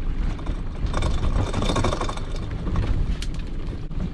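A small fishing boat's engine and pot-hauling gear run steadily as a string of lobster pots is hauled up. There is a sharp click about three seconds in.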